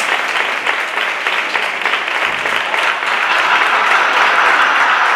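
An audience applauding steadily, a dense patter of many hands clapping, which grows a little louder about three seconds in.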